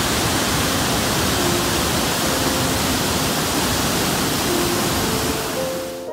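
Nugget Falls, a large waterfall, heard up close at its base: a loud, steady rush of falling and churning water.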